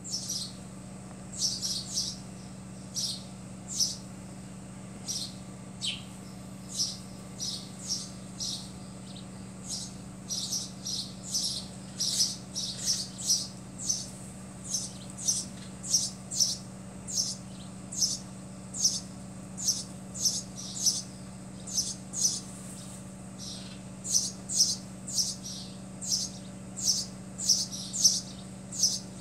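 A small bird chirping over and over, short high chirps coming about one to two a second with brief pauses, over a steady low hum.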